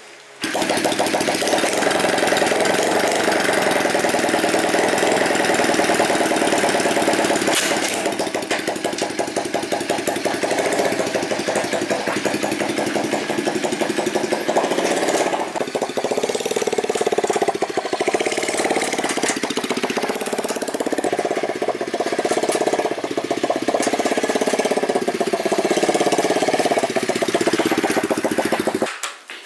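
Rebuilt 150cc motorcycle engine running, cutting in about half a second in. In the second half its pitch rises and falls repeatedly as the throttle is blipped, and it stops abruptly near the end.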